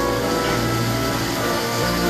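Background music with sustained tones at many pitches.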